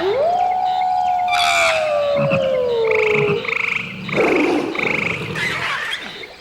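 A string of animal calls: one long call that rises sharply, then slowly falls in pitch, followed by four short, evenly spaced high calls.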